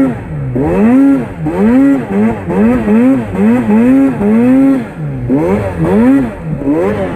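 Arctic Cat snowmobile with an MBRP aftermarket exhaust, its engine revving up and dropping back over and over, roughly every half second, as the throttle is worked through deep snow.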